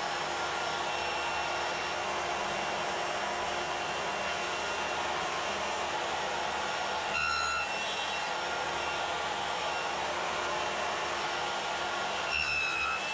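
Stationary circular saw (table saw) running steadily while a workpiece held on end in a sliding sled is passed over the blade to cut a tenon. The tone shifts briefly twice, about seven seconds in and near the end, as the blade bites into the wood.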